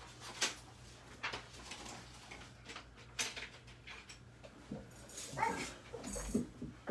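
A dog whimpering briefly near the end, with a few soft knocks and rustles before it over a steady low hum.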